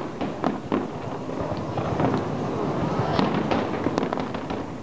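Aerial fireworks bursting in an irregular, rapid series of bangs, several a second, overlapping one another.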